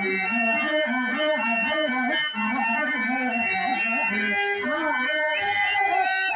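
A woman singing a drawn-out, ornamented Telugu verse (padyam) over harmonium accompaniment.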